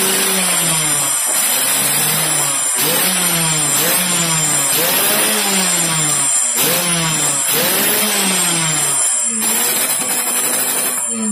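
Yamaha RX-King 135 single-cylinder two-stroke engine revved through its crisp-sounding exhaust in quick throttle blips, about one a second. Each rev rises sharply and drops back to idle, and the engine settles to a steady idle near the end.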